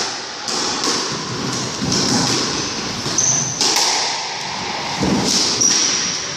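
Squash rally: sharp knocks of racket and ball against the court walls, roughly a second apart, with short high squeaks of shoes on the wooden court floor.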